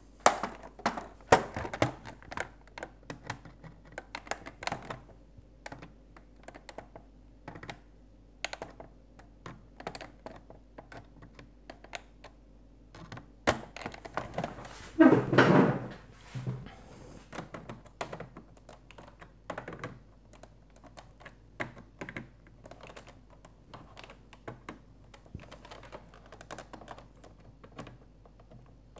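Irregular small clicks and knocks of the hollow plastic body of a Fisher-Price Alpha Probe toy being handled and turned over while its small screws are worked with needle-nose pliers, with one louder bump about halfway through.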